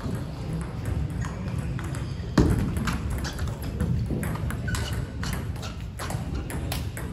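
Table tennis rally: the celluloid-type ball clicking off paddles and table in quick, uneven strikes, denser in the second half. One louder thud comes about two and a half seconds in.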